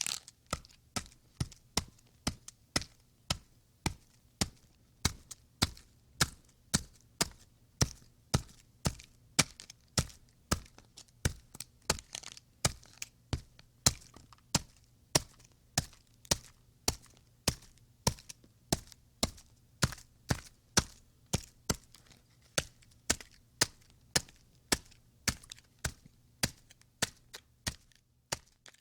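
Ice pick chipping at ice: sharp strikes repeated at a steady pace, a little under two a second, some hits louder than others.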